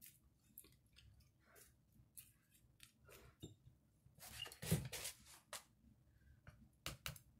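Faint scattered rustles and light taps of hands handling moist potting soil and a plastic seed-starter tray while covering sown seeds, with a slightly louder rustle about four to five seconds in and a couple of sharp clicks near the end.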